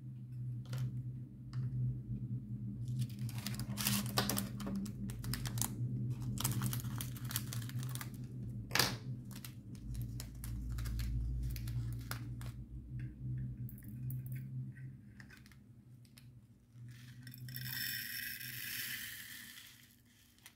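Small plastic bags of diamond-painting drills being handled: scattered clicks and rattles with plastic crinkling, and a longer crinkling rustle near the end, over a steady low hum.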